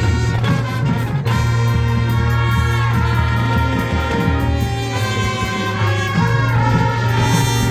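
A marching band's brass section playing held chords over a steady low bass note, with a downward slide in pitch about three seconds in.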